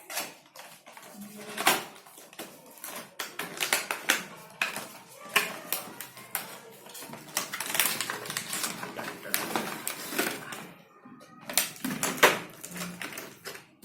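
Hands unpacking a boxed product: irregular clicks, taps and knocks of packaging being opened and handled, with rustling between them.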